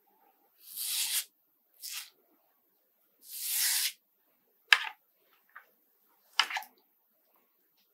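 Cartridge razor scraping across a lathered scalp, shaving off stubble in three strokes of a second or less each, followed by two sharp clicks about two seconds apart.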